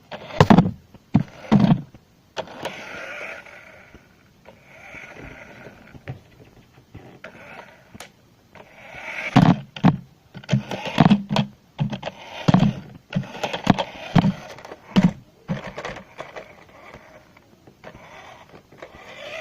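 Small electric motor of a toy remote-control car whirring in spurts, broken by short, louder bursts of sound.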